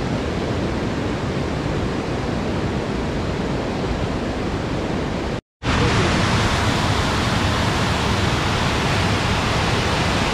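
Steady rushing of a mountain river over rocks; after a short silent break a little past halfway it comes back louder and brighter as the cascade of white water pours into a pool.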